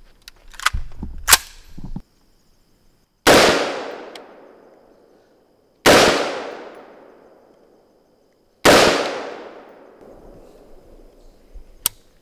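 Three unsuppressed shots from an M16 rifle firing 5.56 mm rounds, spaced a couple of seconds apart, each followed by a long echoing decay. Two sharp clicks of the rifle being handled come about a second before the first shot.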